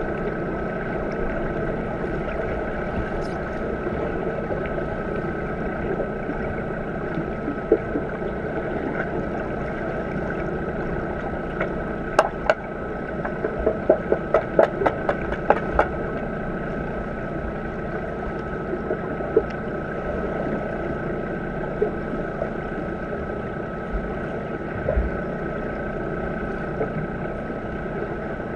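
Underwater sound of a swimming pool picked up by a submerged camera: a steady rushing noise with a constant hum. About twelve seconds in, a quick run of sharp clicks and knocks lasts some four seconds.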